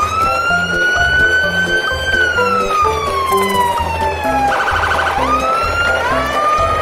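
A siren wailing over background music with a steady beat. Its pitch sweeps up and holds, then falls slowly over a couple of seconds. About four and a half seconds in it breaks into a short rapid warble, then rises again.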